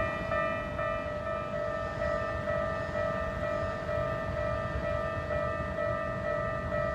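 Japanese railway level-crossing warning alarm ringing its electronic 'kan kan' bell tone, at about two strokes a second.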